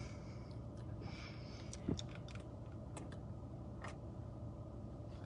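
Faint scattered clicks and small lip and handling noises as lip gloss is applied with a wand applicator, over a low steady hum.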